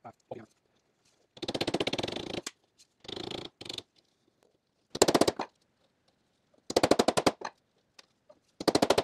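Ball-peen hammer tapping a painted stainless steel window glass channel against a wood block, in five bursts of rapid light metallic taps, working a bend out of the channel.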